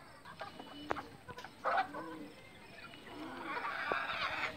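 Backyard desi chickens clucking in short, low, repeated calls, with a few sharp clicks. The calls grow busier and louder in the last second or so.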